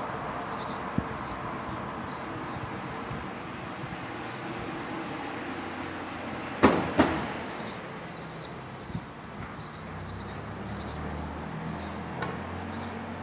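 Sparrow chirping over and over, short high chirps in quick runs, over a steady low background rumble. About halfway through, two sharp clicks a fraction of a second apart are the loudest sounds.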